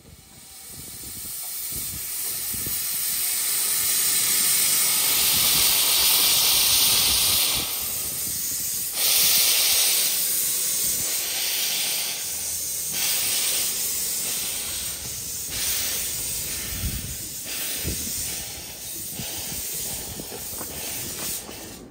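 Miniature-railway steam locomotive passing with its train, hissing loudly with escaping steam. The hiss swells over the first few seconds, then comes in louder puffs every second or two as the engine works past.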